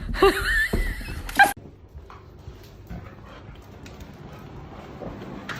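A dog whining in a high, wavering pitch for about a second and a half, then cut off abruptly, leaving only faint room noise.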